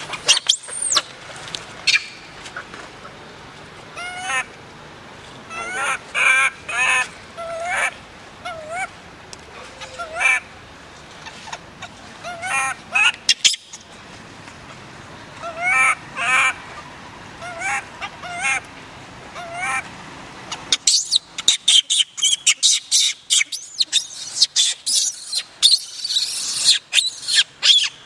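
Baby macaque crying over and over: short wavering cries in small groups, turning about three-quarters of the way through into a fast run of higher, shriller shrieks.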